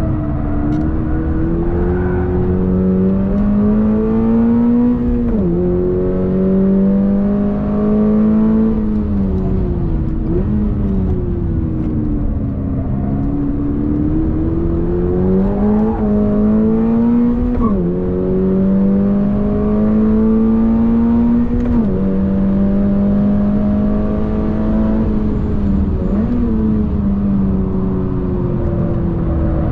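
2022 Toyota GR86's 2.4-litre flat-four engine heard from inside the cabin, pulling hard on track. Its pitch climbs steadily and then drops sharply at each of several gear changes, over a steady low road and tyre rumble.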